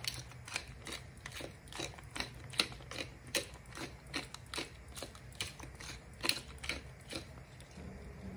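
Hand-twisted glass pepper mill grinding black peppercorns: a steady run of clicks, about four a second, that stops about seven seconds in.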